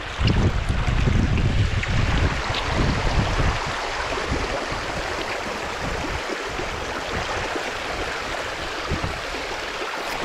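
River water rushing steadily over a shingle bed, with wind buffeting the microphone in gusts for the first few seconds before easing.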